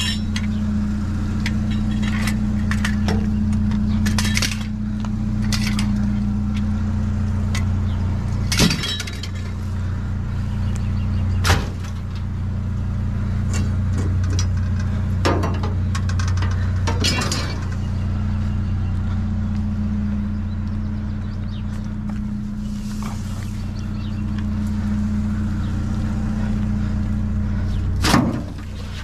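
Pickup truck engine idling steadily, with a handful of sharp clanks and clinks of scavenged items being handled.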